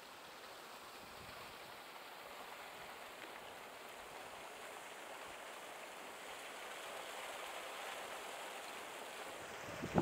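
Sea water washing against a concrete breakwater and its tetrapods: a steady rushing hiss that grows slowly louder.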